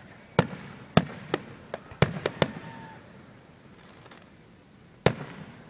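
Aerial firework shells bursting: a rapid string of about seven sharp bangs in the first two and a half seconds, then one more bang near the end.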